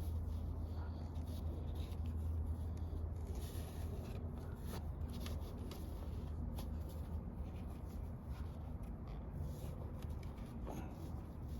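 Rubbing and rustling of convertible-top material being handled and folded over by hand, with scattered small clicks and a steady low hum underneath.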